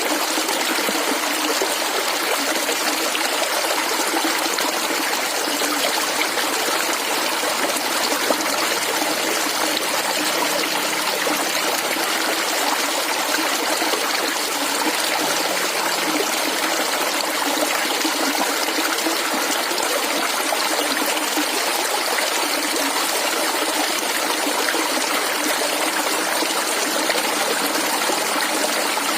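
Clear water flowing and gurgling steadily over stones in a shallow stream, a constant babbling trickle.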